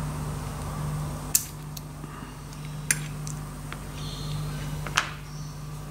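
Three sharp small clicks, with a few fainter ticks, as the piston, connecting rod and steel gudgeon pin of a 1.9 cc model diesel engine are handled and pulled apart by hand. A steady low hum runs underneath.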